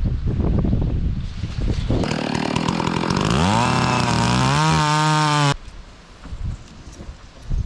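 A Stihl chainsaw starts up abruptly about two seconds in. It revs up steeply in pitch, runs at high revs, and stops abruptly after about three and a half seconds. Before it there is low wind noise on the microphone, and after it quieter outdoor sound with a few light clicks.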